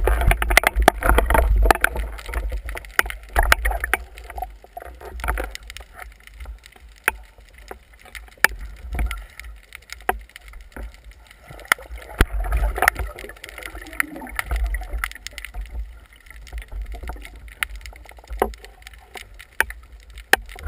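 Water sloshing and gurgling around a speargun-mounted camera at the sea surface, with a low rumble and many scattered sharp clicks and knocks. Louder surges of splashing come in the first few seconds and again around twelve to fifteen seconds in.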